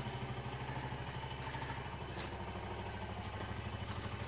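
Suzuki VanVan 200's single-cylinder four-stroke engine idling steadily with an even, rapid chug. One faint click about two seconds in.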